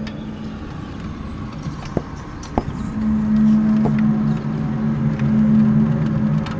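A low, steady droning hum of several tones held together, the unexplained recurring "strange noise" heard outside. It fades out near the start and swells back in strongly about three seconds in, with a couple of faint ticks before it returns.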